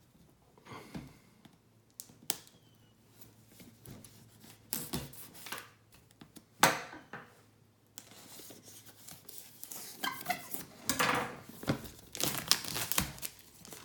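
Plastic wrapping being torn and crumpled off a product box by hand: scattered crackles and rips, growing denser and louder in the second half.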